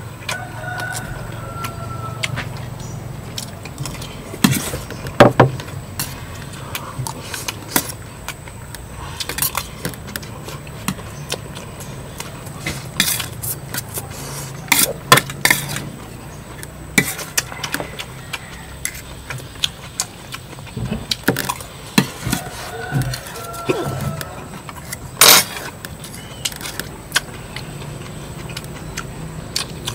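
Spoons clinking and scraping against plates as people eat, in irregular sharp clicks scattered throughout, over a steady low hum.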